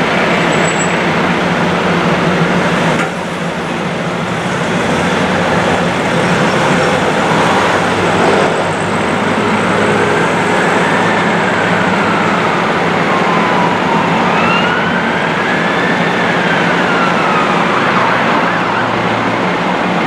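A fire engine siren wails in slow rising-and-falling sweeps through the second half, over steady loud city traffic noise.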